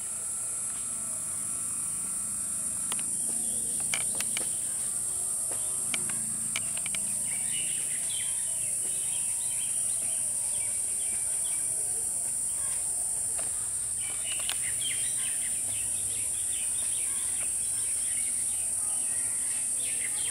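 Steady high-pitched drone of insects, with scattered bird chirps over it.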